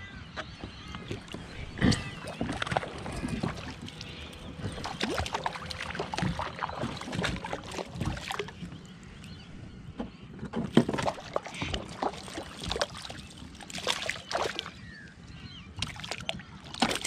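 Water lapping and splashing against a Hobie Compass fishing kayak's hull as it moves, with scattered irregular clicks and knocks, the loudest about two seconds and about eleven seconds in.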